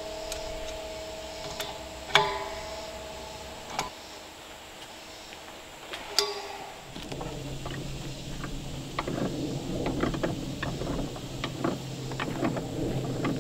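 Steel pipe wrench clanking against the fittings of steel propane cylinders: a few sharp metallic knocks, about two and six seconds in, each leaving a ringing tone. After about seven seconds, quick irregular clicks and ticks of wrench work on the gas pipe over a steady low hum.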